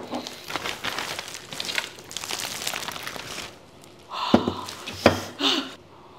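Plastic carrier bag rustling and crinkling as it is pulled off a foil-wrapped soup tureen, then two sharp knocks about a second apart as the tureen is handled.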